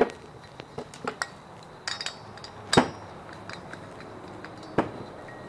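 Sharp metal clinks and knocks, about half a dozen, from the Kawasaki KX250 clutch hub and a nut driver being handled and set down; the loudest knock comes near the middle.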